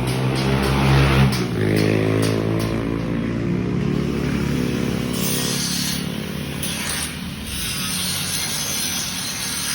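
An engine running and revving, its pitch rising and falling over several seconds.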